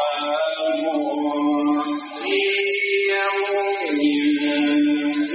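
A male Quran reciter chanting melodically, holding long drawn-out notes that step up and back down between two pitches.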